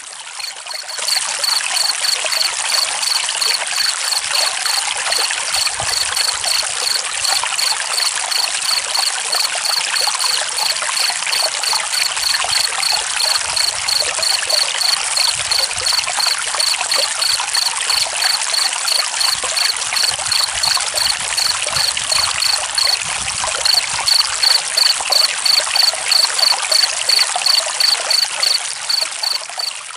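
Steadily trickling, flowing water with a cricket chirping in a quick, even pulse of high chirps, about three a second, with a short break a little past the middle.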